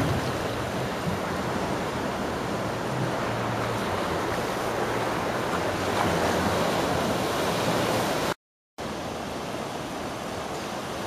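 Large wave-pool waves breaking: a steady rush of churning, crashing water. The sound cuts out for a moment about eight seconds in, then comes back.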